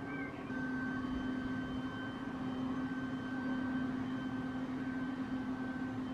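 A steady engine drone with a low hum and fainter higher tones over a noisy haze.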